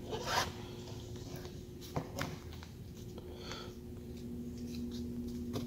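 Faint scraping with a few light ticks as a paper business card scoops plastisol ink off a screen-printing screen's mesh and aluminium frame, over a steady low hum.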